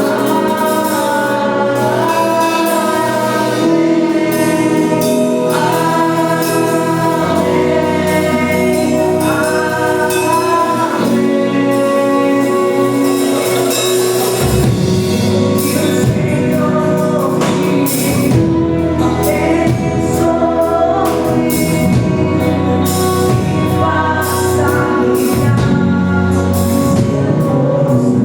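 Gospel worship song: voices singing together over instrumental backing, with long held notes and a fuller low end about halfway through.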